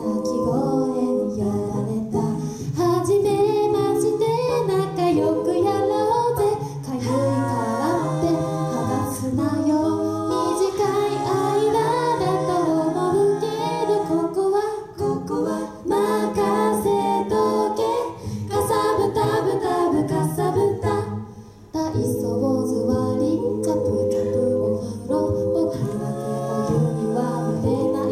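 Five-voice a cappella group singing a pop song in close harmony, a low vocal bass line held under the lead and backing voices. The singing breaks off for a moment about three quarters of the way through.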